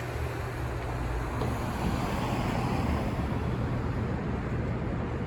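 Street traffic noise: a steady low engine rumble with road noise over it, swelling slightly about two seconds in.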